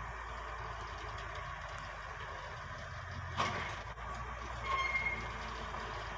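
Bucyrus dragline excavator's engine running steadily as the bucket is dragged in and hoisted. A single sharp metallic clank comes about three and a half seconds in, and a brief high squeal follows about a second later.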